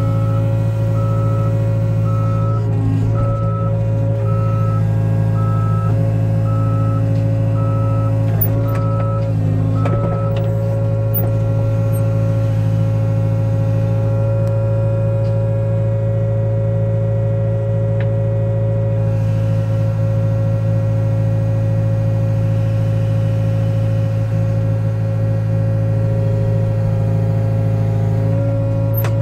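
Truck-mounted crane's engine running steadily to drive the crane as it lifts concrete blocks, with an evenly repeating high warning beep that stops about ten seconds in.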